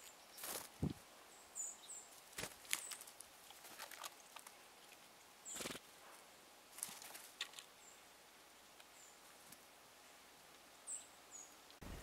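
Red squirrel feeding on nuts and seeds: faint, scattered clicks and crackles, with a few brief, high bird chips.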